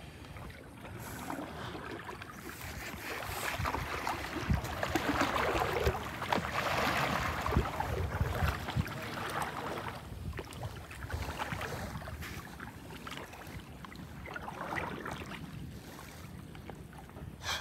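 Water sloshing and splashing close around a kayak, swelling for several seconds in the middle, with wind rumbling on the microphone.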